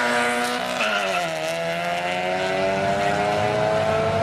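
Drag-racing car engine running hard. Its pitch drops about a second in, then climbs steadily.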